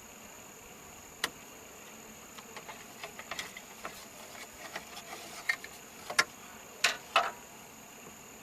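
Scattered light clicks and taps from handling the wiring and plastic parts around an opened steering column, a few louder knocks near the end. Under them runs a steady high insect trill.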